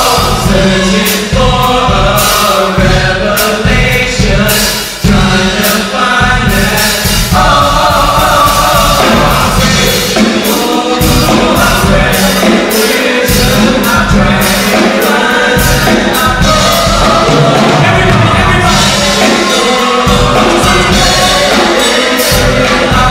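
A song with several voices singing together over a steady drum beat, at a constant loud level.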